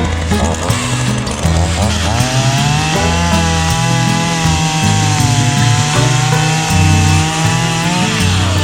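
Two-stroke chainsaw revving up about two seconds in and cutting through wood, its pitch sagging slightly under load, then winding down near the end. Background music with a bass line plays underneath.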